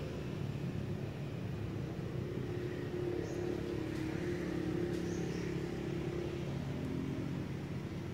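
A vehicle engine running steadily as a low rumble, with a humming tone that stands out for a few seconds in the middle.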